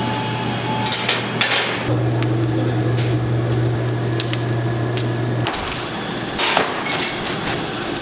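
Wood knocking and cracking in a series of sharp strikes, over a steady low machine hum that stops about five and a half seconds in.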